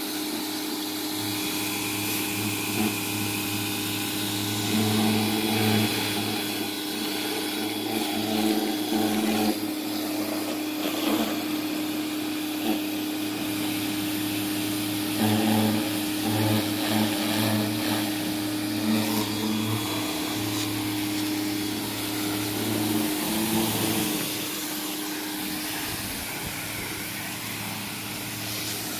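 A pressure washer running steadily with a constant hum, its wand spraying a hissing jet of water against a garage door and wall. The hum wavers now and then and eases slightly near the end.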